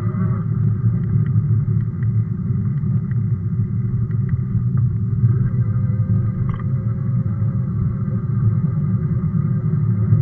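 Steady, muffled low rumble of a Sondors electric fat bike riding over rough, potholed pavement: wide tyre noise and wind on the mounted camera, with a few faint ticks.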